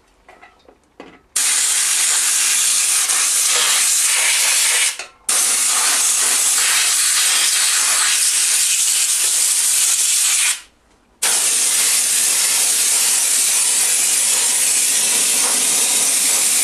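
Air-fed degreaser spray gun at about 40 psi hissing as it sprays, in three long bursts: it starts about a second in, with short breaks about five and eleven seconds in.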